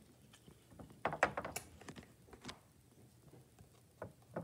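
Faint handling noise: soft rustles and small clicks as plush toys are moved by hand, in a cluster about a second in and again near the end.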